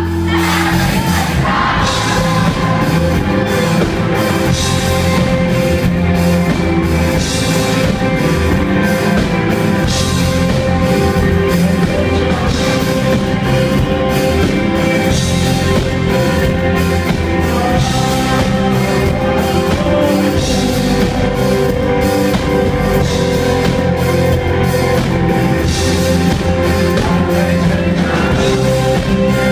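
A rock band playing live, drum kit and sustained instruments with singing, loud and steady throughout.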